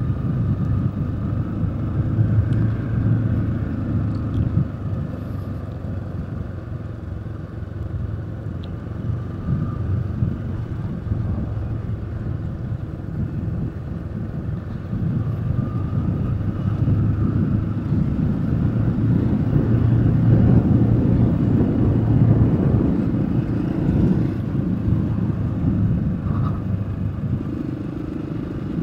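Vehicle running along a road, heard from on board: a steady engine hum under rumbling road and wind noise, growing louder about two-thirds of the way through.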